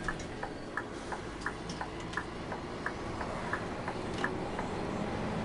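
Truck cab's turn-signal indicator ticking evenly, about three ticks a second, over the diesel engine running. The ticking stops about four seconds in, and the engine note grows louder near the end.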